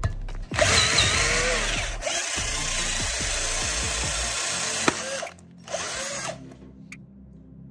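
Cordless drill boring into a pine block with a freshly sharpened twist bit. It runs for about five seconds, stops, then gives one short second burst.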